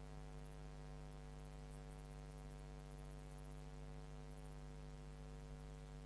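Faint, steady electrical mains hum, a low hum with a row of higher tones above it, picked up by the recording.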